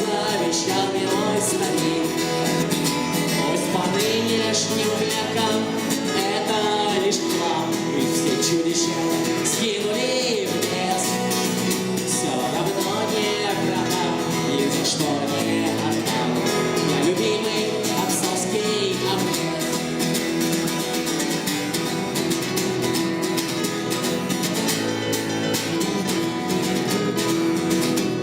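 A band playing a song, with guitar chords under a wavering melody line.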